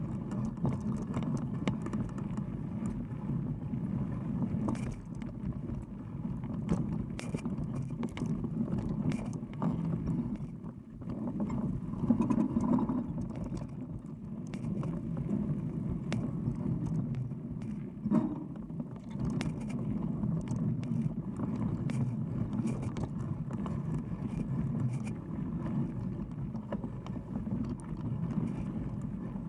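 Mountain bike tyre rolling over a dirt trail, heard close from a camera mounted by the front wheel: a steady rumble with frequent clicks and rattles from bumps, and a louder jolt about twelve seconds in and again near eighteen seconds.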